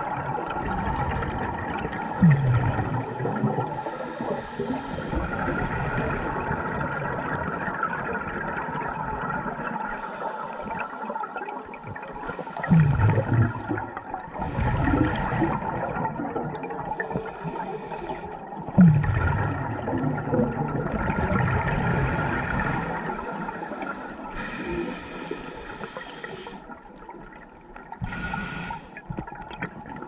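Scuba diver breathing through a regulator underwater: hissing inhalations alternate with bubbling exhalations every few seconds. The three loudest exhalations, about 2, 13 and 19 seconds in, come as heavy low bubble rumbles.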